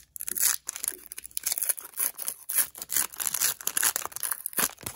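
A foil Pokémon Astral Radiance booster pack crinkling and tearing as fingers rip it open, in a quick run of sharp crackles.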